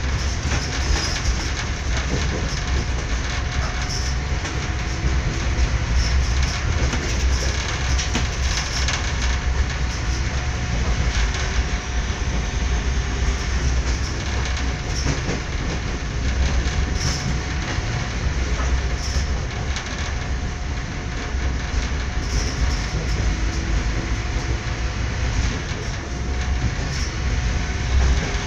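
Passenger train running along the track, heard from inside the carriage: a steady low rumble of wheels on rail with occasional short clicks.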